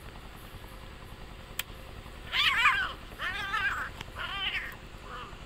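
Domestic cat caterwauling during mating: three loud wavering yowls in quick succession starting a little over two seconds in, then a short faint one near the end.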